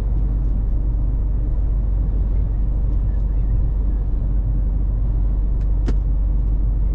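Steady low rumble of a Scania S 500 truck cruising on the highway, engine and road noise heard inside the cab. A single sharp click about six seconds in comes from the electric kettle on the dashboard as it is handled.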